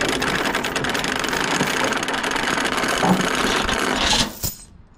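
Steel load-securement chain being pulled off a wooden cable reel on a flatbed trailer, its links rattling and clinking rapidly without a break. The rattle stops suddenly near the end.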